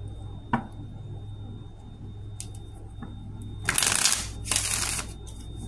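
Tarot deck shuffled in the hands: a single tap about half a second in, then two short rustling bursts of shuffling near the end.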